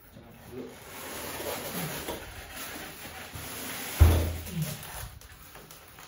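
Scraping and rustling as white packing strips are pulled away from the base of a refrigerator, with a single loud thump about four seconds in.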